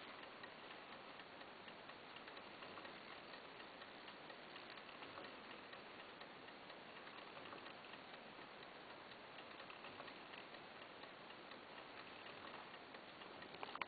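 Old Junghans mechanical clock movement ticking steadily, its escapement beating faintly over background hiss.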